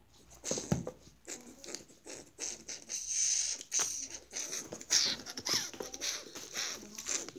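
Close, irregular rustling and scratching with sharp clicks, from a small puppy being held and shifting about against clothing near the microphone.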